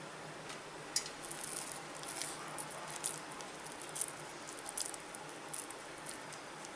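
Hand squeezing and shaping a coarse, crumbly dough of toor dal, chana dal and rice, ground without water, into balls. Soft squishing with scattered short crackles and clicks, about one a second.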